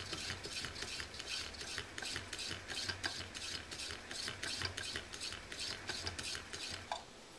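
Converted ceiling fan motor being hand-cranked as an alternator, a rapid mechanical clicking and rattling over a low hum, easing off near the end. It is generating over 110 volts AC.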